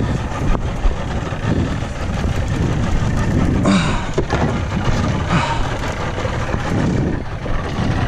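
Boat engine running at idle under steady wind and water noise, with a few short louder rushes of noise.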